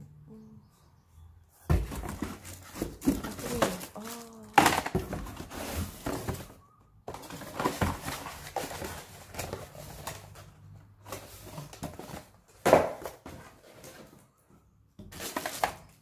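Plastic packaging bags and a cardboard box being handled: crinkling and rustling in irregular bursts, with a few sharp knocks and short pauses.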